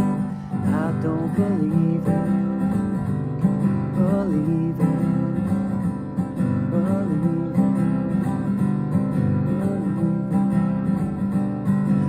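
Acoustic guitar strummed steadily in chords, with a man's voice singing a few drawn-out, wavering notes over it.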